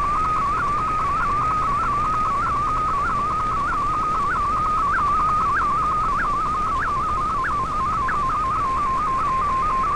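Shortwave digital image transmission being received, heard over the radio as a single warbling electronic tone around 1 kHz. Its pitch shifts constantly as the picture data is sent, with short upward blips about twice a second.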